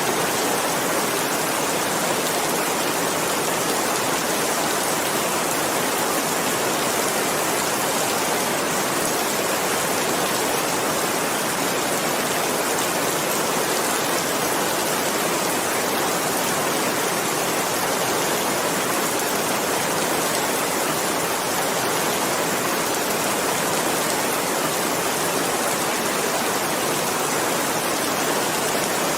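Steady, dense rainfall: an even hiss of countless drops, with no single drops or thunder standing out.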